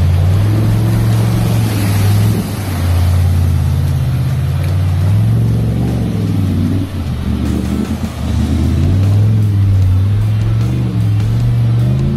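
A four-wheel-drive vehicle's engine revving as it drives through a deep, muddy track, with background music playing over it.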